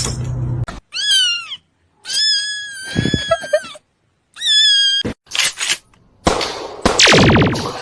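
Kitten meowing three times in a high pitch: a short arched meow, a long held one, then a short one. This is followed by a few seconds of loud noise with a fast downward sweep near the end.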